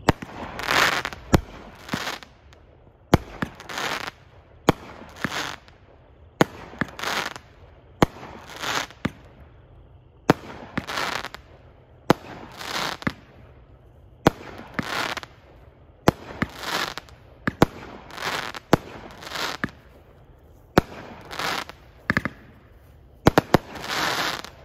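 A 16-shot, 200 g consumer fireworks cake firing shot after shot, about one every one and a half seconds. Each shot is a sharp report followed by about a second of crackling burst, with two shots close together near the end.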